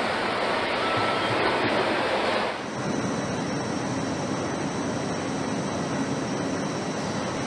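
Steady rushing, whirring noise of factory machinery at work, with robots and fibre-placement equipment laying up composite fan-blade material. About two and a half seconds in the noise drops and changes to a lower, steadier hum with a faint high whine.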